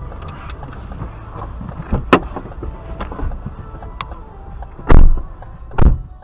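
A car's cabin with the engine idling as a low rumble, broken by a few sharp clicks and two loud, deep thumps near the end.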